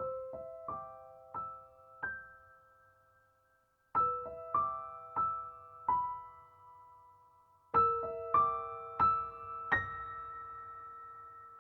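Background piano music: short phrases of a few notes, each note struck and left to ring out and fade, with brief pauses between the phrases.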